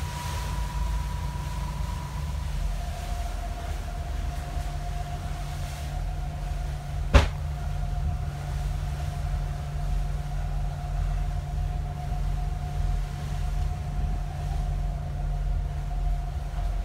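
A fast ferry's engines running under way, heard from inside the wheelhouse as a steady low drone with a faint steady whine that drops in pitch about two and a half seconds in. A single sharp knock comes about seven seconds in.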